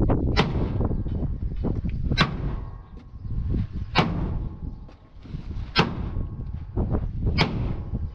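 Heavy hammer blows on the steel cab of an accident-damaged Mercedes-Benz Actros truck as the bodywork is beaten back into shape: five hard metallic strikes about two seconds apart, over a low rumble.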